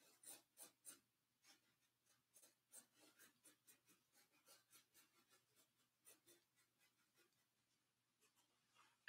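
Faint strokes of a paintbrush dabbing and scraping on canvas, quick and irregular, several a second at first and sparser later. A short, louder noise comes right at the end.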